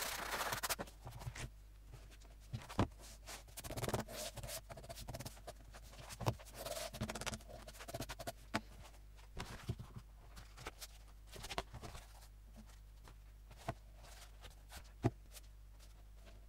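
Hands handling a paper text block on a cutting mat: a sanding rub that stops just under a second in, then faint rustling of the paper stack and scattered light taps and knocks, the sharpest a few seconds in, about six seconds in and near the end.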